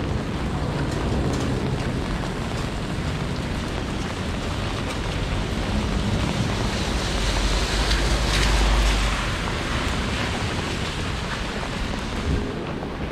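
Steady rain hiss with a vehicle passing on the wet road. Its tyre spray and rumble swell to a peak about eight seconds in, then fade.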